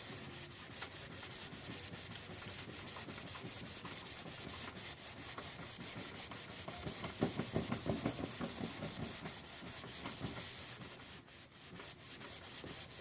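Sock wet with bug spray rubbed briskly back and forth on a cloudy plastic car headlight lens to clear it: a steady, rhythmic scrubbing, heavier and louder for a couple of seconds around the middle.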